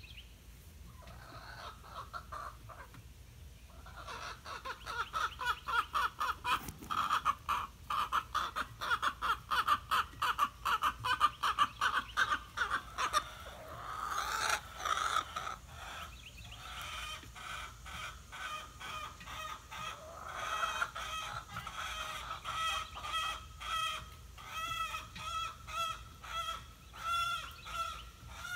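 Chickens clucking: after a quiet start, a fast run of loud clucks for several seconds, then a longer call, then a regular series of calls about once a second.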